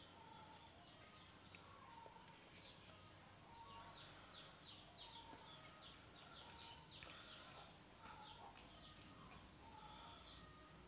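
Faint birds chirping: short repeated high notes, with a quick run of falling chirps in the middle.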